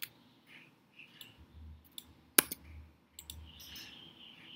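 A few sharp clicks from a computer keyboard and mouse during code editing, the loudest about halfway through, with faint room noise between.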